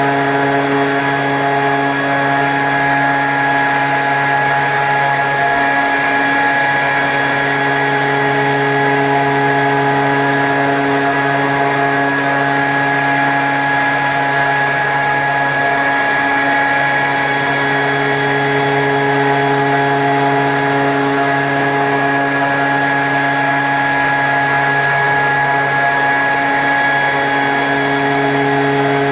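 CNC spindle motor running steadily, drilling a hole in a river stone: a loud, even motor hum with a high whine, which wavers briefly twice as the bit works into the stone.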